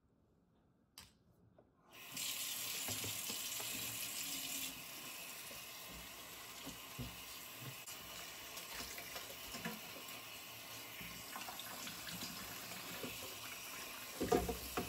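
Kitchen faucet water running into a stainless-steel sink: it comes on abruptly about two seconds in, is heavier for the first few seconds, then runs steadily with small splashes as hands rinse fish under the stream. A louder thump comes just before the water shuts off at the end.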